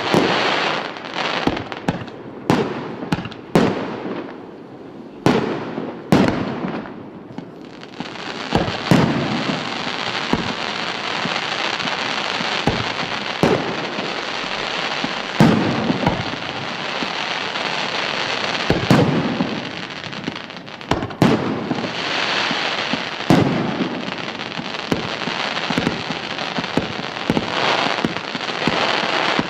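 A 418-shot firework compound cake firing. For the first eight seconds come separate sharp bangs, each dying away; then a dense, continuous crackle sets in, broken by louder bangs every few seconds.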